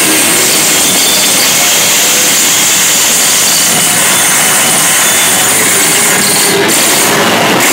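Loud live noise music: a dense, unbroken wall of grinding, hissing noise with no melody or beat, flaring briefly into brighter hiss near the end.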